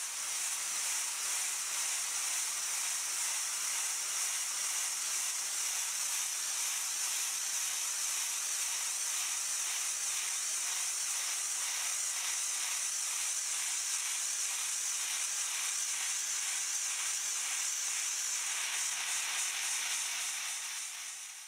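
Sodium bicarbonate blasting nozzle spraying: a steady, high-pitched hiss of compressed air and blast media.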